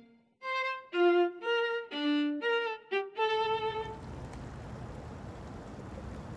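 A violin melody of short, separate notes that ends about four seconds in, giving way to a steady rush of wind and choppy water.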